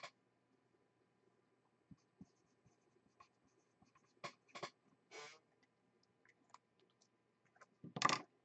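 Marker writing on a trading-card redemption card: a few short scratchy strokes with pauses between, the loudest group about eight seconds in.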